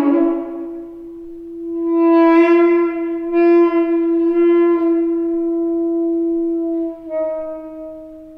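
Saxophone playing long held notes that swell and fade. The first note has a thick, rough sound that thins out about a second in, then a brighter note swells up and is held, and the pitch dips slightly about seven seconds in.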